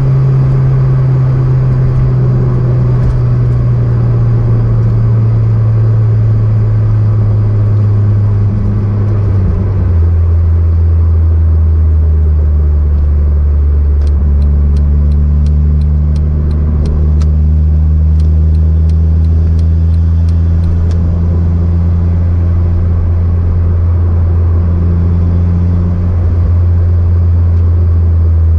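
Car engine running steadily under way, its drone dropping to a lower pitch about a third of the way in. Partway through, a run of regular clicks comes about twice a second for several seconds.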